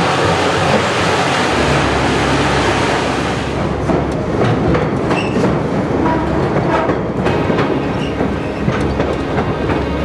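White Pass and Yukon Route narrow-gauge train running along the track: a steady rumble with wheels clacking over the rails, heard from aboard. About three and a half seconds in the hiss drops and separate clacks stand out as the train runs through a rock tunnel.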